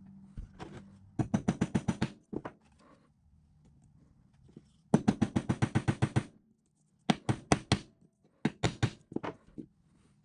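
Ball-peen hammer tapping a small fitting into an electric motor's end bell, in quick runs of about ten taps a second; four runs, the longest about five seconds in, with a few single taps between.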